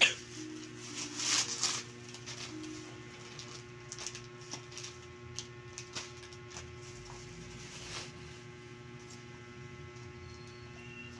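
Plastic bubble-wrap packaging and coffee packets rustling and crinkling as they are unwrapped and handled. A sharp crackle comes at the start and a louder crinkling burst about a second in, then scattered light crackles and clicks, all over a steady low hum.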